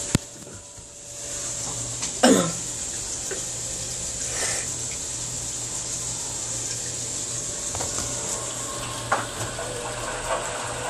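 Washing machine filling with water, a steady rush of water running into the tub that settles in about a second in. A short, loud falling squeak comes about two seconds in, with a few fainter knocks later.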